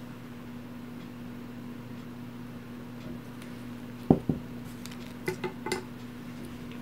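Two low thumps about four seconds in, then a few light clicks and taps: plastic board-game miniatures and their packaging being handled on a tabletop. A steady low hum sits underneath.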